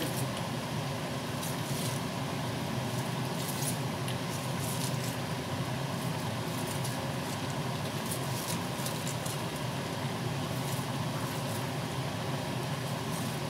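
Steady hiss and hum of vegetables cooking in a frying pan on a gas stove, with light crackles and rustles as handfuls of cut cabbage are dropped into the pan.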